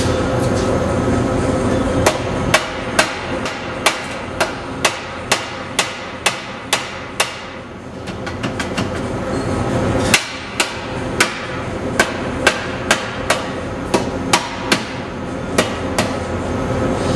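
Hammer striking the steel exhaust pipe under the car, sharp metallic blows about two a second: a run of about a dozen, a pause of a couple of seconds, then another dozen.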